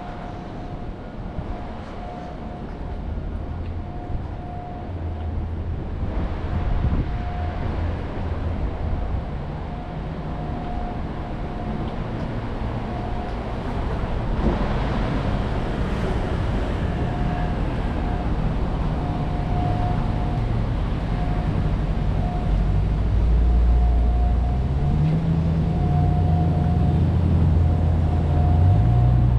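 City street traffic: a steady rumble of passing vehicles that grows louder, with a nearby engine's low drone strongest in the last several seconds. A short beep repeats on and off throughout.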